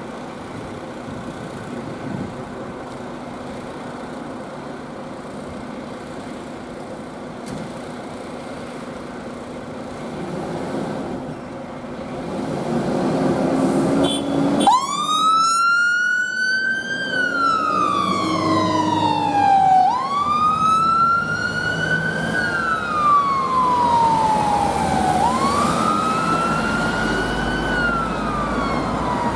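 Fire engine responding: its engine runs and builds for the first half. About halfway through, its siren switches on in a slow wail, rising and falling about every five seconds.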